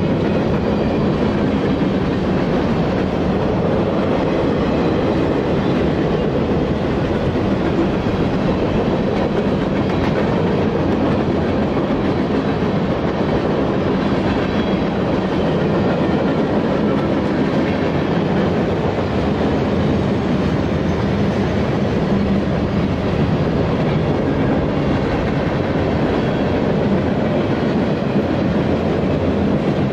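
Freight train cars (covered hoppers and boxcars) rolling steadily past, with a continuous rumble and clatter of steel wheels on the rails.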